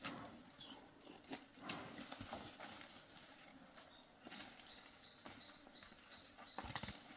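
Irregular knocks and scuffs of buffalo hooves and animals struggling on the ground, faint and uneven.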